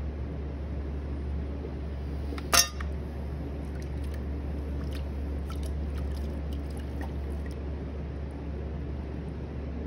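Electric pottery wheel motor running with a steady low hum. About two and a half seconds in there is one sharp knock, followed over the next few seconds by light splashes and drips of water as a sponge is worked in the throwing water.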